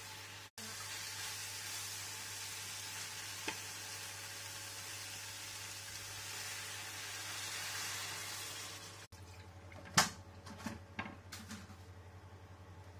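Vegetables and tofu stir-frying in a hot wok, a steady sizzling hiss with a spatula scraping, as water is poured in from a kettle about halfway through. After a break, one sharp click about ten seconds in and a few smaller pops.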